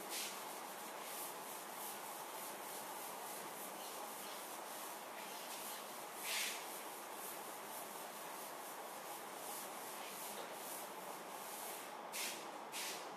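Blackboard duster wiping chalk off a chalkboard: faint repeated rubbing strokes at a couple a second, with a few harder strokes about halfway through and twice near the end.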